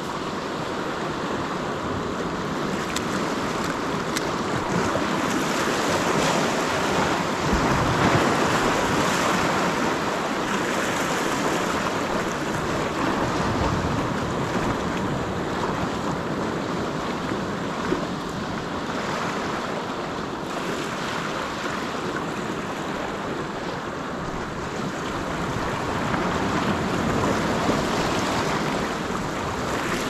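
Sea surf washing and surging over the rocks close by, swelling about a quarter of the way in and again near the end, with wind buffeting the microphone. A single sharp click about two-thirds through.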